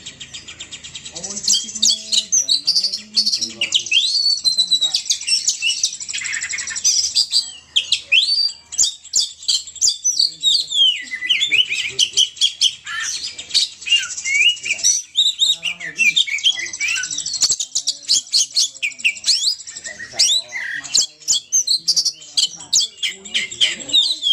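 Burung poci lure call: a fast, dense stream of high chirps and twitters with quick rising and falling notes, pausing briefly a few times.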